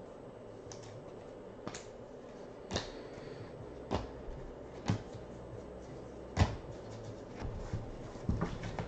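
Light clicks and taps of trading cards being handled and set down on a table, a handful of separate knocks a second or so apart, with a quick cluster near the end.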